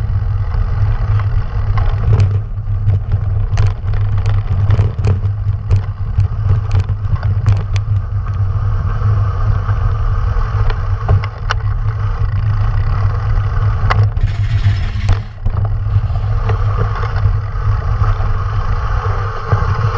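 Mountain bike riding down a gravel track: a steady rumble of tyres on the loose surface and wind buffeting the mounted camera's microphone, with frequent rattling clatter from stones and the bike. A brief hiss comes about fourteen seconds in.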